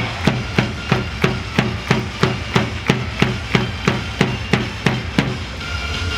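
Stadium cheer beat: sharp, even strikes about three a second, the crowd beating time, over a low steady rumble. The beat stops about five and a half seconds in.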